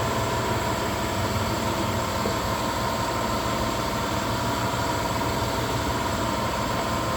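Machinery running steadily, a constant noise with a few steady whining tones.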